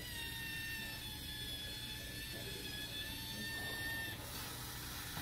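Small robot's electric drive motors whining steadily as it drives up and climbs onto a box step; the whine stops about four seconds in.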